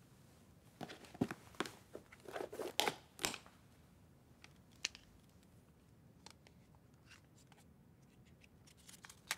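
Faint handling sounds: a cluster of light clicks and rustles in the first few seconds, then a few soft ticks, as a compact case is handled and opened and a slip of paper is drawn out of it.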